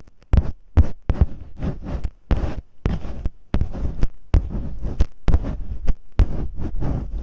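Masking tape rubbed and scratched against a microphone in ear-cleaning-style ASMR: irregular short scratchy strokes with low thuds, about two or three a second.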